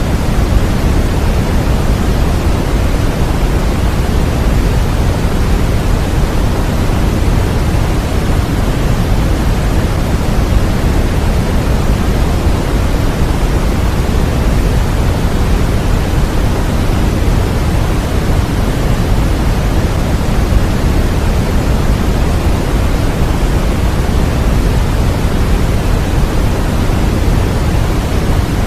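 Continuous, unchanging synthetic sleep noise, marketed as white noise but weighted toward the low end like pink noise. It is a steady hiss with no events or changes.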